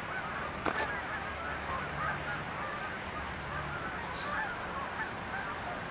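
A flock of geese honking, many short calls overlapping over a steady rushing background. There is a single sharp click a little under a second in.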